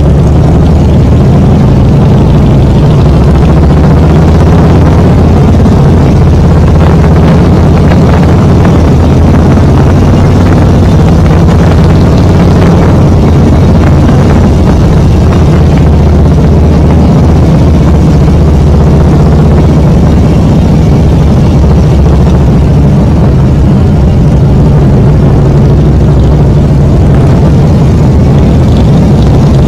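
Motorcycle engine running steadily while riding along, heard loud and close from the bike itself, its low engine tones holding even with no revving or gear changes.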